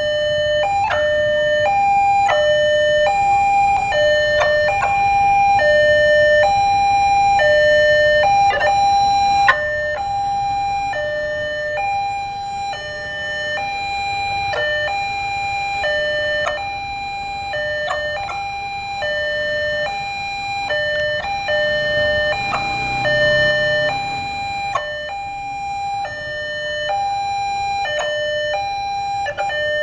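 Indonesian railway level-crossing warning alarm sounding steadily: an electronic two-tone chime alternating high and low in an even rhythm, warning that a train is approaching and the barrier is closed. Traffic rumbles faintly underneath.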